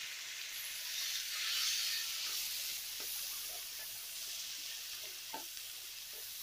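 Chopped tomatoes, onions and dried red chillies frying in oil in a hot kadai, a steady sizzle, with a wooden spatula scraping and stirring a few times.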